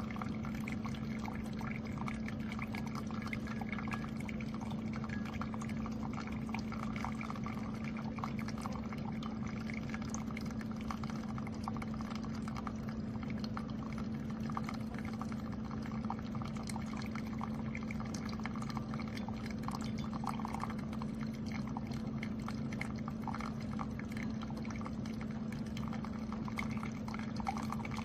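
Keurig K-Slim single-serve coffee maker brewing: a steady pump hum with coffee pouring into the cup.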